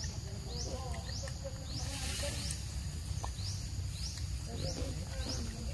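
Forest background: a short, high, rising chirp repeated about twice a second from a small wild creature, over a steady low rumble, with a brief hiss about two seconds in.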